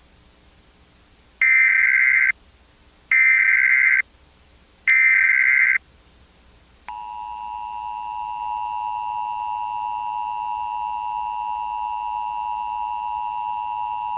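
Emergency Alert System tones: three short bursts of the SAME header data signal, a harsh digital screech about a second each and about a second apart, then about 7 s in the steady two-tone EAS attention signal starts and holds.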